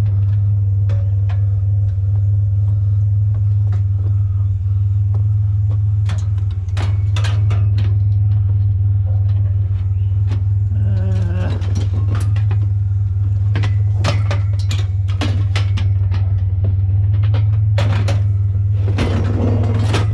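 Truck engine running with a steady low drone, with scattered clicks and knocks on top.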